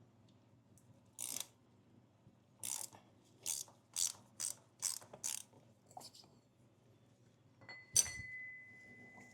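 Ratchet wrench clicking in short strokes, about two a second, as it loosens a motorcycle's screw-on oil filter. Near the end, a sharp metallic clink that keeps ringing.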